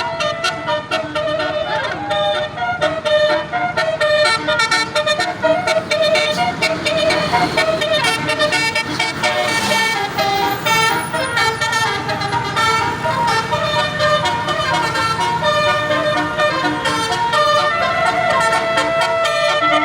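Basuri multi-tone telolet horn playing a melody: a continuous run of short, stepped horn notes.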